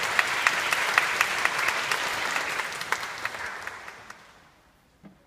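Audience applauding, dying away about four seconds in, followed by a single soft knock near the end.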